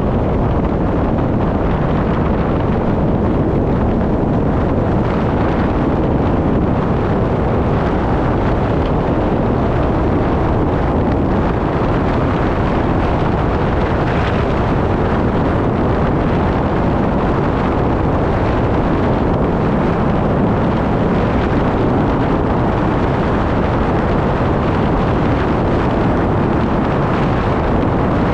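Steady road and wind noise from a vehicle driving along, an even rumble with no changes.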